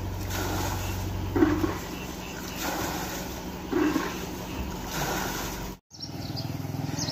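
A steady engine hum with a few short splashes as floodwater is bailed out with a bucket. After an abrupt cut, a motorcycle engine runs as the bike rides through shallow floodwater.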